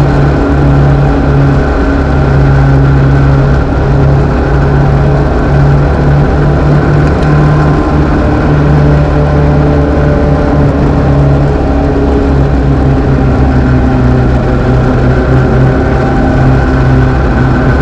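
INEX Legends race car's engine running hard at racing speed, heard from inside the car's cockpit, its pitch holding fairly steady with small rises and dips.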